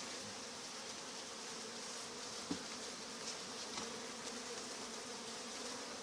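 Honeybees buzzing steadily, with a faint knock about two and a half seconds in.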